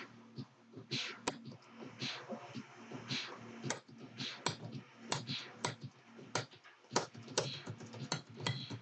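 Small steel parts of a disassembled Marlin 60 .22 rifle and a hand tool clicking and scraping against each other as they are worked by hand, an irregular run of light clicks with a few short scratchy strokes in the first half.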